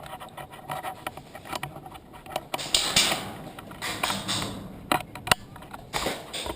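Airsoft guns firing in a skirmish: irregular sharp pops and clacks, loudest around three seconds in and with one loud crack about five seconds in.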